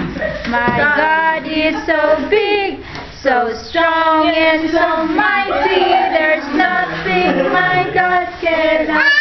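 A toddler and older girls singing a song together, holding long notes, with a short break about three seconds in.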